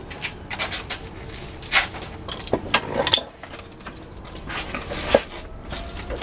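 Metal hand tools clinking and clattering as they are handled, a few sharp metallic clinks standing out among lighter clicks.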